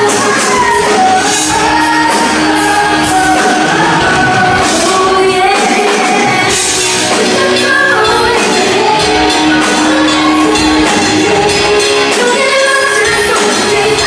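Live band playing a song with a lead singer, loud and continuous.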